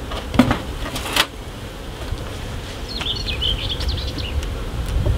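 Honey bees buzzing around an opened beehive, with two sharp knocks of equipment being handled about half a second and a second in. A small bird chirps for about a second and a half from about three seconds in.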